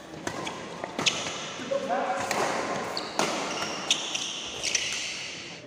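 Badminton rally: racket strings striking the shuttlecock with sharp cracks about once a second, amid squeaks of players' court shoes on the floor. The sounds echo in a large hall.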